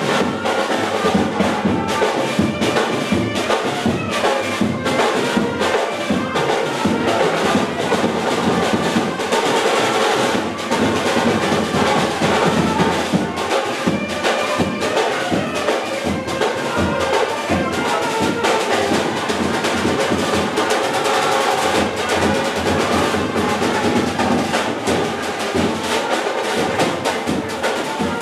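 Music with drums and brass instruments over a steady, busy drumbeat.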